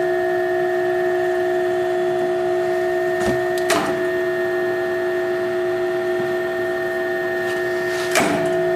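Drill tap machine running three 10-32 taps at about 250 RPM, its motor giving a steady whine, with a sharp click about four seconds in and again near the end as it automatically switches direction at the set depth.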